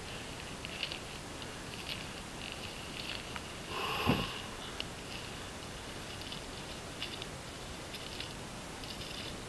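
A hiker's soft footsteps swishing through dry grass and forest litter, with his breathing. About four seconds in comes one louder breath, falling in pitch.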